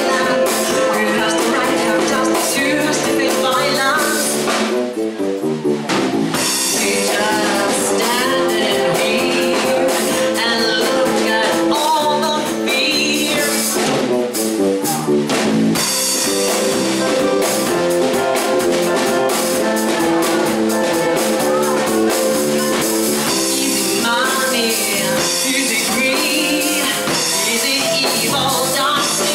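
Live band playing: a woman singing into a microphone over a drum kit, electric bass and a Nord keyboard.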